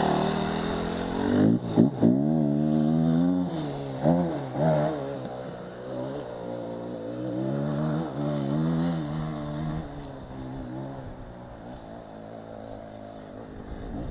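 Enduro dirt-bike engines running at idle, blipped up in short, sharp revs about two seconds in and again around four to five seconds, then settling to a steadier, quieter idle.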